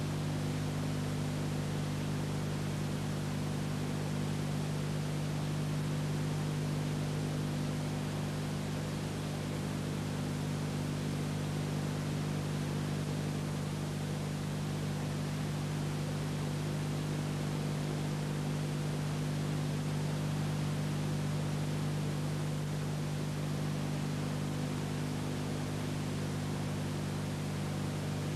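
Steady hiss with a low electrical hum and nothing else, the noise floor of an old silent film copied to videotape.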